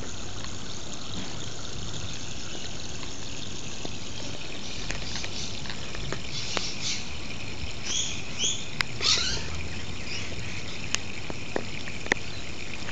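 Steady hiss of water spraying from a leaking garden hose onto grass. A few short, high chirps sound about eight to nine seconds in, and a few light clicks come near the end.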